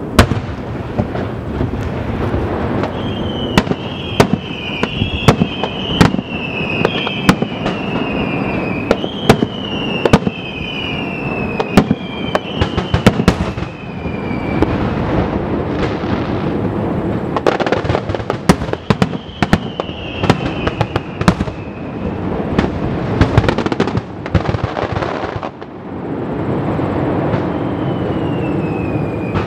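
Fireworks display: many sharp shell bursts and crackling reports over a steady rumble, with runs of short falling whistles through much of it.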